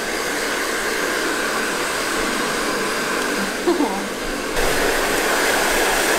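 Handheld hair dryer blowing steadily, a constant rushing hiss that steps up louder about three-quarters of the way through.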